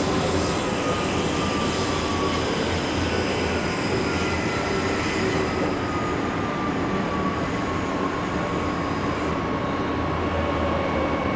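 Inside a Transperth B-series electric multiple unit under way: a steady rumble of wheels on track, with a thin electric motor whine that falls slowly in pitch over the first two-thirds and then holds level. This is the train easing its speed as it nears the next station.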